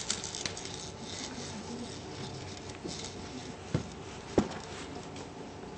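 Quiet room with faint rubbing and handling noise, and a few small clicks; two sharper taps come about three and a half and four and a half seconds in.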